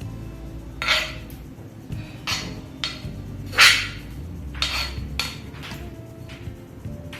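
Irregular sharp clinks and knocks of utensils against dishes, one or two a second, the loudest about halfway through.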